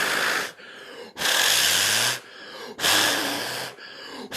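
A person blowing hard in repeated puffs, about one a second, onto a computer fan, with quick sharp breaths drawn in between.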